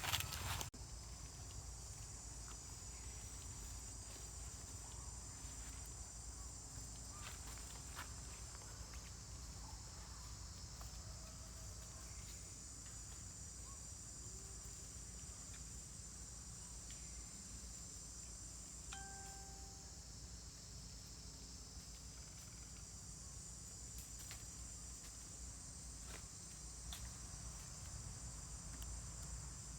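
Steady, unbroken high chirring of insects, with a low rumble underneath and a few faint clicks.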